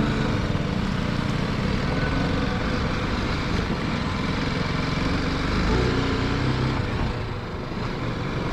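Single-cylinder motorcycle engine running, its speed rising and falling, under a rough, noisy wash of sound.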